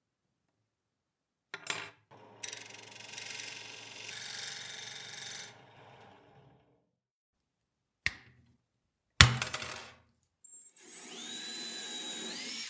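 Wood turning on a small lathe: a motor runs while a tool cuts the spinning wood with a hiss, then fades out. A sharp knock comes about nine seconds in, then a cordless drill whirs against the wood, its whine rising as it comes up to speed.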